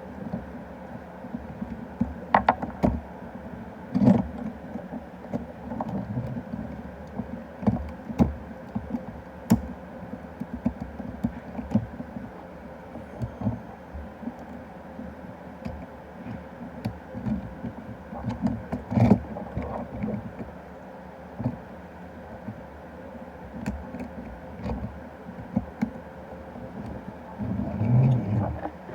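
Plastic toy parts being handled, with scattered clicks and knocks over a steady low hum.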